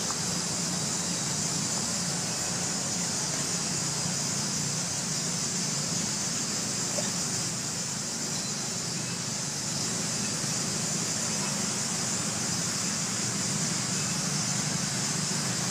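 Steady outdoor background noise: a constant high-pitched hiss over a faint low hum, with no animal calls.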